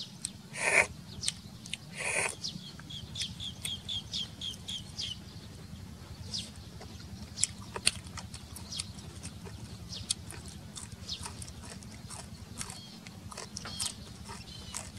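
Snails being sucked noisily out of their shells, with two loud slurps in the first few seconds, then a quick run of short clicks and scattered clicks of shell and chewing.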